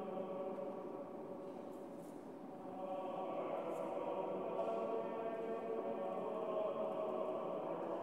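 Church choir chanting in a reverberant church, holding steady chords that swell a little about three seconds in.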